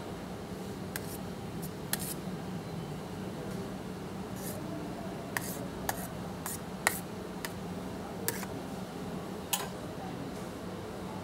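Sharp metal clicks and taps of a knife blade scraping minced-meat topping off another blade onto a plate of fries, about a dozen scattered through the stretch. A steady low hum runs underneath.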